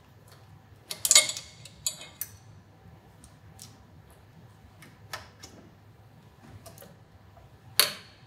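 Scattered metallic clicks and knocks of hand tools and fittings as a motorcycle brake line is being disconnected, loudest about a second in and again near the end.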